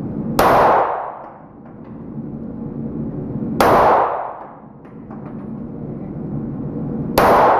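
Three pistol shots from a Glock 19 in 9 mm, about three and a half seconds apart, each followed by a short echo that dies away within a second.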